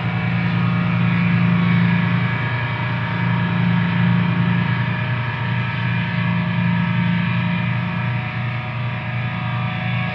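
Music: a distorted electric guitar droning on held notes, loud and steady with only slight changes in pitch.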